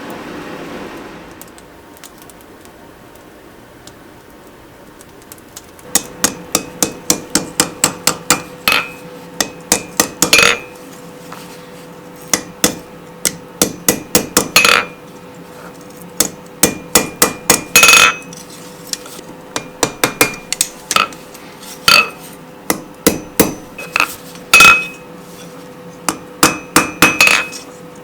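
Rounding hammer striking hot steel on an anvil in quick runs of blows with short pauses, starting about six seconds in, the anvil ringing on between the blows. A soft rushing noise fades out in the first second or two.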